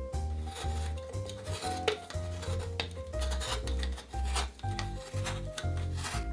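Hand scraping and rubbing strokes with a few sharp clicks, over background piano music.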